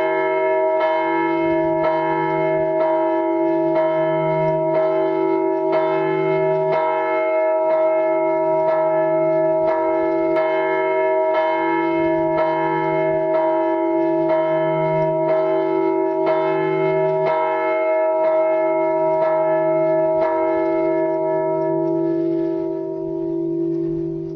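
Church bells ringing, struck about once a second, with a long ringing hum under the strokes. The strikes stop near the end and the ringing dies away.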